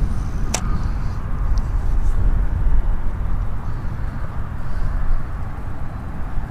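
Wind buffeting the microphone, a fluctuating low rumble, with a single sharp click about half a second in.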